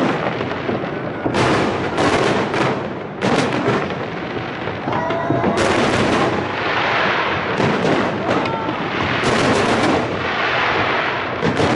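Aerial fireworks shells bursting in quick succession: loud bangs about every one to two seconds, over continuous crackling and rumble.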